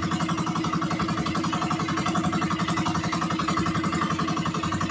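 Small outrigger boat engine running steadily at constant speed, with a fast, even throb.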